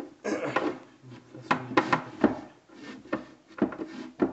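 Plastic rubbing, clicks and knocks as a plastic water tap is pushed and turned into the hole in a water purifier's plastic storage tank. There is a short scrape at the start, then a string of sharp knocks from about a second and a half in.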